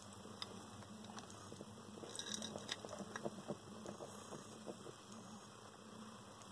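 Faint scattered clicks and scrapes of land hermit crabs' shells and legs knocking on wood, rock and each other as they climb, busiest from about two to three and a half seconds in, over a low steady hum.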